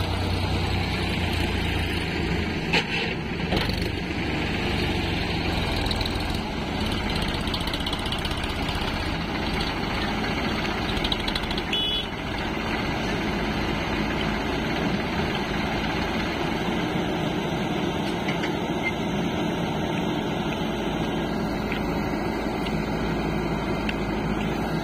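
The diesel engine of a Sonalika DI-50 tractor runs steadily as the tractor manoeuvres with a loaded trolley. A JCB backhoe loader's diesel engine runs close by. A few short knocks are heard, around the third second and near the middle.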